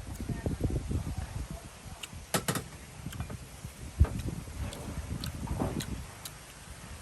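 Eating sounds: irregular soft chewing noises with a few sharp clicks, the loudest about four seconds in.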